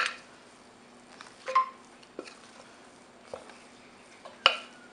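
Wooden spatula mixing bread dough in a glass bowl, knocking against the glass about five times with short ringing clinks; the sharpest knocks come at the start and near the end.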